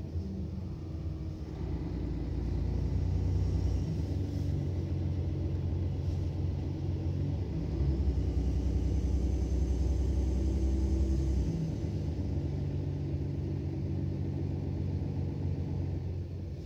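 Mercedes-Benz Citaro O530 city bus's diesel engine running under way, heard from inside the passenger cabin as a low rumble. The rumble swells about two seconds in and again for a few seconds past the middle, then drops back sharply.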